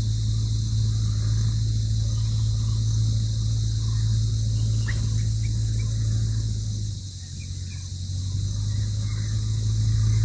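Insects droning steadily at a high pitch over a loud low steady hum, which dips briefly about seven seconds in. A few short faint bird chirps, the clearest about five seconds in.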